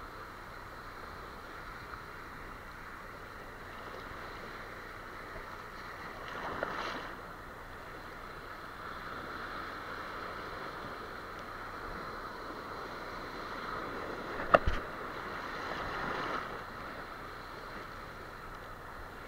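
Shallow surf washing steadily, fairly quiet, swelling briefly twice. One sharp knock about two-thirds of the way through.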